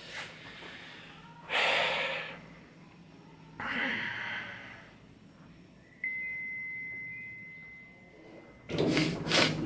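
A man breathing out heavily twice inside a lift car, over a steady low hum. About six seconds in, the lift's chime sounds as a single high beep that fades over a couple of seconds, and a louder burst of noise comes near the end.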